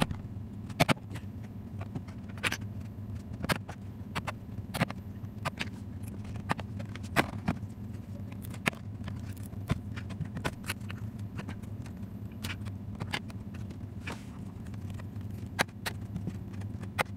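Sharp, irregular clicks and snaps of plastic as the HP ProBook 430 G7 laptop's plastic bottom cover is pried loose from its clips, over a steady low hum.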